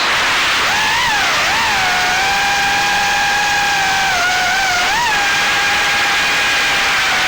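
Small FPV quadcopter's brushless motors (GEPRC 1206 4500kv with Gemfan 3028 props) whining in flight over a loud hiss of prop wash and wind, the pitch dipping and rising with throttle changes a few times and holding steady in between.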